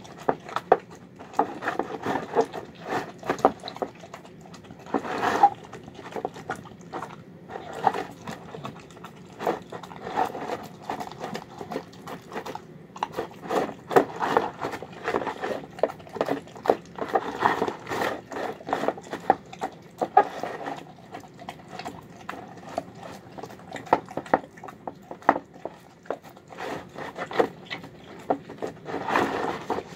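A dog eating chicken, green beans and rice from a bowl: a fast, irregular run of chewing, smacking and lapping sounds.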